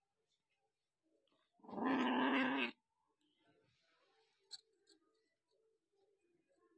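A cat gives one loud call lasting about a second, nearly two seconds in. A short sharp click follows a couple of seconds later.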